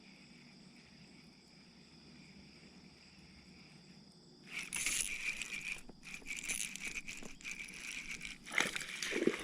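Faint steady background; about halfway through, water splashing and a clicking, rattling clatter at the kayak as another hooked smallmouth bass is brought in.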